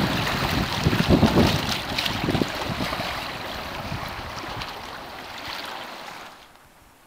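Wind buffeting the microphone over rough river water, with low gusting rumbles; the sound fades away about six seconds in.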